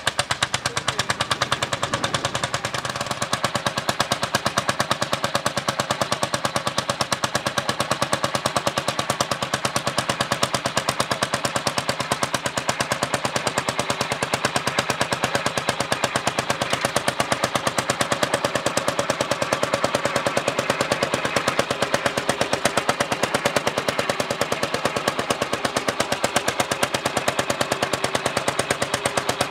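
Lanz Bulldog tractor's single-cylinder hot-bulb two-stroke engine running under load while pulling a plough, a loud, rapid, even popping beat from its exhaust.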